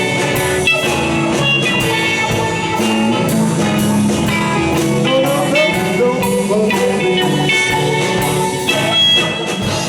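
Live rock band playing with guitar and drum kit, a steady beat under sustained guitar notes, with no lead vocal line.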